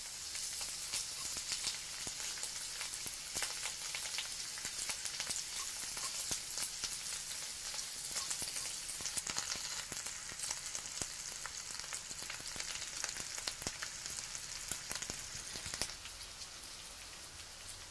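Pieces of pollock roe frying in canola oil in a pan: a steady sizzle with many small pops and crackles, the roe eggs bursting as they cook. It drops a little quieter for the last couple of seconds.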